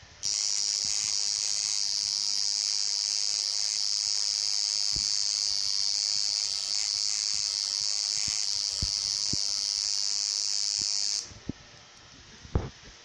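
Coil tattoo machine buzzing steadily as it inks a tattoo. It starts just after the opening and cuts off suddenly about two seconds before the end.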